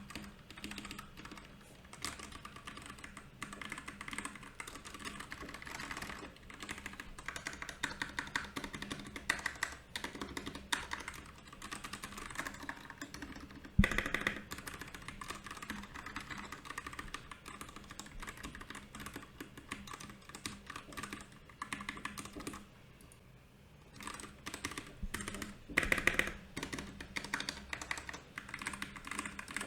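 Typing on a Royal Kludge RK68 mechanical keyboard: a dense, irregular run of key clicks and clacks, with one especially loud keystroke about halfway through, a brief lull a little later, and a louder flurry near the end.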